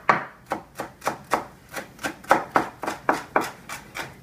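Knife chopping fresh herbs on a wooden cutting board: quick, even strokes, about three to four a second.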